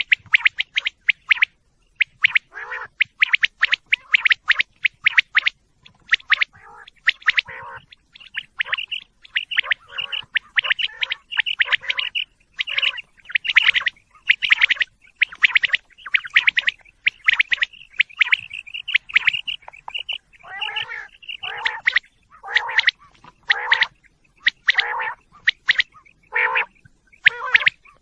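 Female common quail calling: short bursts of rapid clicking, chattering notes, repeated about once a second with brief gaps between them.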